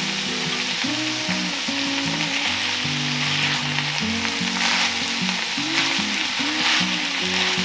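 Ground beef, butternut squash and baby spinach sizzling in an enamelled cast-iron skillet as the spinach wilts. A silicone spoon stirring them scrapes across the pan every second or so.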